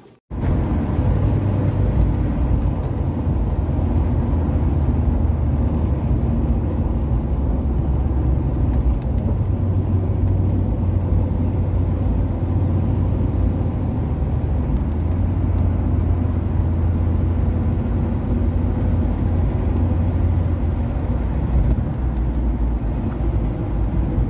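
A car driving, heard from inside the cabin: a steady low engine and road rumble that starts abruptly just after the start.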